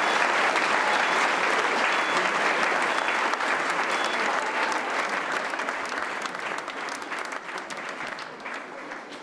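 Audience applauding, the clapping gradually dying away over the last few seconds.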